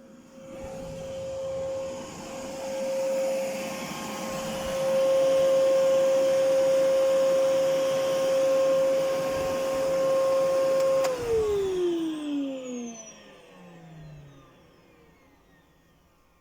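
Hoover Whirlwind vacuum cleaner running with a steady whine that grows louder over the first few seconds. About eleven seconds in it is switched off, and the motor's whine falls in pitch as it spins down and fades.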